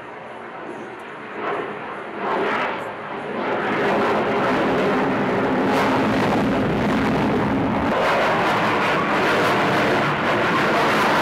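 Delta-wing fighter jet flying overhead, its engine noise growing from a moderate rumble to a loud, steady roar about three to four seconds in.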